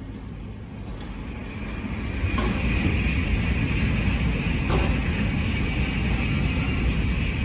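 Shinkansen bullet train passing at high speed: a rushing, rumbling noise that swells about two seconds in and stays loud.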